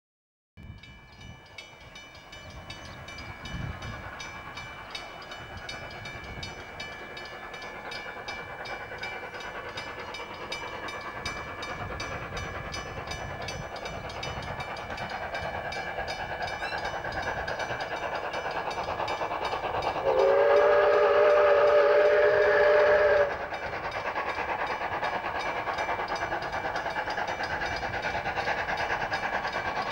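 South Australian Railways 520-class 4-8-4 steam locomotive No. 520 approaching under load, its exhaust growing steadily louder. About twenty seconds in it sounds a multi-note whistle for about three seconds.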